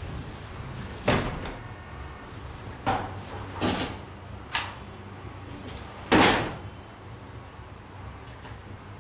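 Knocks and thuds from a person climbing in through a window hatch and moving about. There are five, unevenly spaced, and the loudest and longest comes about six seconds in and fades over half a second. A low steady hum runs underneath.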